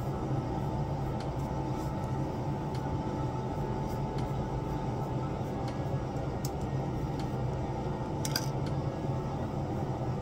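A steady low hum, like a fan or other small-room machine noise, with a few faint clicks and a sharper click about eight seconds in.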